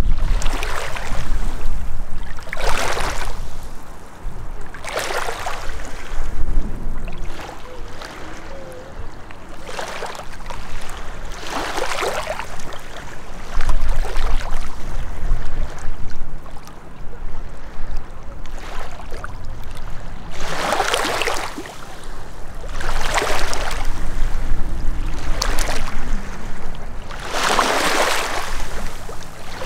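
Small lake waves lapping and splashing over rocks and pebbles at the water's edge, one wash every two to three seconds, with wind buffeting the microphone in a low rumble that swells now and then.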